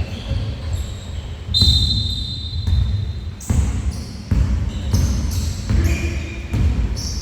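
Basketball bouncing repeatedly during a game, with several short high squeaks, the loudest about one and a half seconds in.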